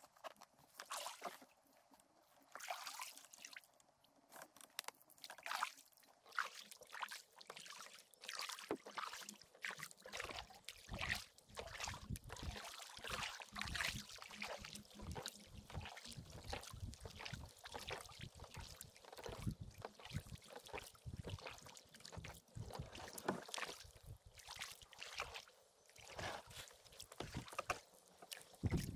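Double-bladed kayak paddle dipping into calm river water, with drips and small splashes off the blades. The strokes are scattered at first and become steady, continuous paddling from about ten seconds in.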